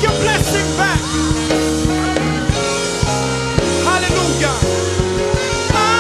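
Band music with a steady drum beat, a bass line and a singing voice.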